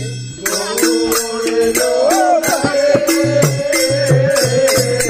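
Devotional Harinam kirtan: a voice chanting a wavering melody over a fast, regular beat of hand cymbals.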